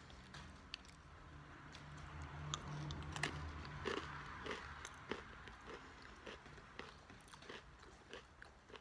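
A person biting and chewing a pretzel: faint, scattered crisp crunches, most of them in the middle stretch.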